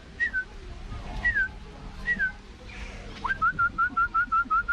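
Whistling traded between a black-capped lory parrot and a man imitating it: a few single falling whistles, then about two-thirds of the way in a quick run of short whistles at about six a second.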